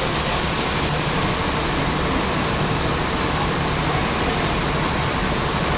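Steady rushing hiss over a low, even hum from railway equipment standing at the platform, with no change over the whole stretch.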